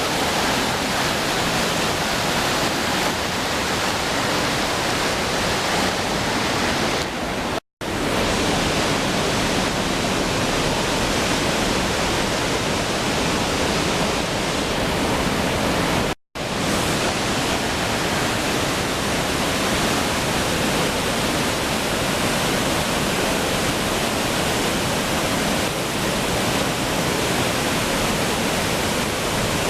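A waterfall pouring: a steady, loud rush of falling water. It cuts out for an instant twice, about a quarter and about halfway through.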